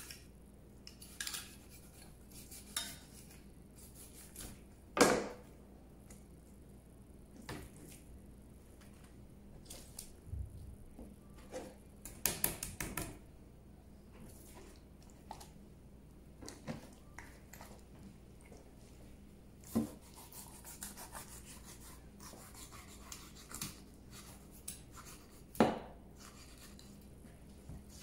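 A knife and fish being handled on a cutting board during filleting of a whole round fish: scattered knocks, taps and scrapes, the loudest about five seconds in and near the end, with a short run of clatter in the middle.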